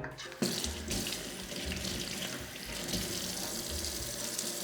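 Water running steadily, starting about half a second in, as the diamond sharpening stone is rinsed to check its surface for scratches left after flattening.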